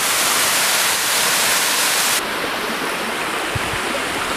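Waterfall rushing loudly and steadily. About two seconds in it cuts abruptly to a quieter rush with a few low thumps.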